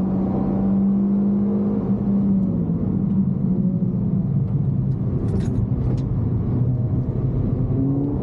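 Suzuki Swift Sport ZC32S's 1.6-litre four-cylinder engine heard from inside the cabin on track, held at high revs near 5,700 rpm and then easing off about two and a half seconds in as the car slows for a corner. It runs lower and rougher before picking up again right at the end, with a few short clicks around five to six seconds in.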